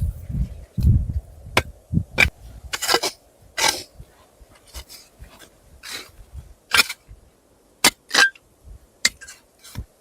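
A series of sharp, irregular cracks and knocks, about a dozen, with low rumbling thuds in the first second.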